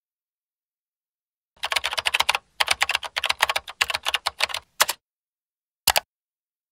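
Computer keyboard typing: a fast run of keystrokes starting about a second and a half in, with a brief break partway through, lasting about three seconds. About a second after the typing stops comes a single click.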